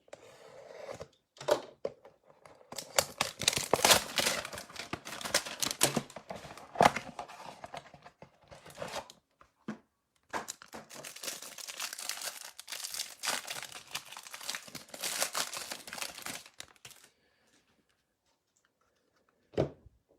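A hanger box of football trading cards being torn open: tearing and crinkling of the cardboard and wrapping in bursts, with a short break about halfway through. A single soft thump follows near the end.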